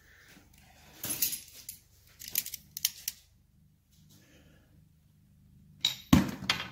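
Metal hand tools clinking and clattering against metal. There is a burst of clinks about a second in, a few sharp clicks at two to three seconds, and a louder knock and clatter near the end.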